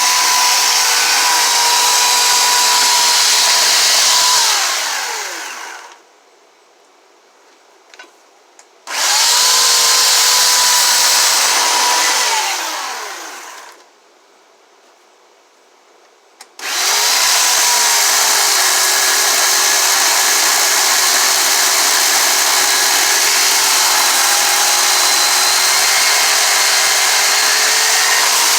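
Power carving tool running at a steady high speed while cutting into a log; about four seconds in it is let off and spins down to a stop, starts up again around nine seconds, winds down again around twelve seconds, and starts once more near seventeen seconds and runs on.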